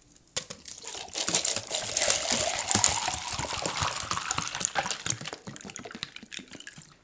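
A drink pouring from a large plastic bottle into a clear plastic mug, splashing steadily, with the pitch rising as the mug fills. A few clicks come first.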